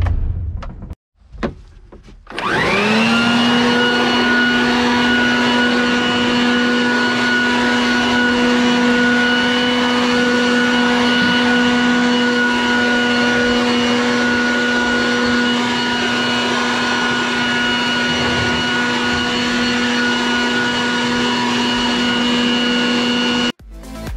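Shop vacuum switched on about two seconds in, its motor whining up in pitch and then running at a steady high hum for leaf cleanup, before cutting off suddenly near the end.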